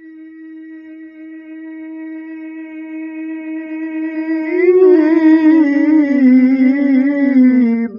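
A male qari chanting the Quran (tilawah) into a microphone. He holds one long note that swells louder, then about four and a half seconds in breaks into a wavering, ornamented run that falls in pitch and stops right at the end.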